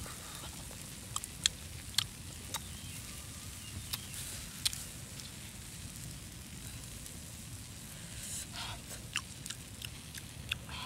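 Small wood fire crackling under a stone slab where fish and egg are cooking: irregular sharp pops, sometimes a few a second, over a low steady rumble.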